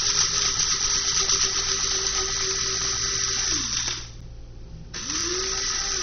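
Small electric motor of a kitchen appliance whirring at a steady pitch. It winds down about three and a half seconds in, starts up again with a rising whine about five seconds in, and winds down once more near the end.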